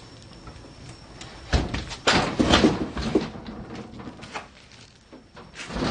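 Several knocks and clattering rattles, loudest in a cluster about two to three seconds in, with a few lighter knocks after.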